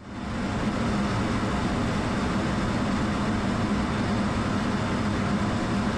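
Steady noise of a fighter jet in flight, engine and rushing air heard from inside the cockpit, with a low hum running through it. It starts abruptly.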